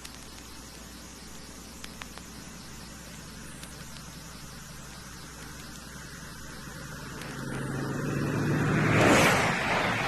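A vehicle approaches out of a faint background hiss and passes close by, loudest about nine seconds in, then carries on more quietly.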